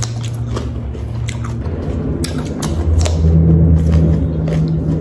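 Raw cucumber being crunched and chewed, with irregular crisp cracks, over a loud low drone that shifts in pitch about a second and a half in and again a little later.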